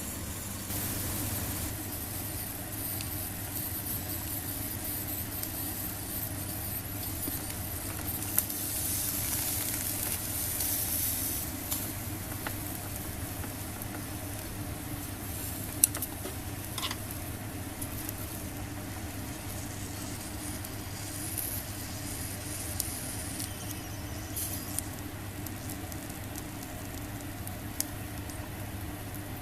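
Squid sizzling as it grills on a wire net over a solid-fuel mini fire pit, a steady hiss with a few sharp clicks.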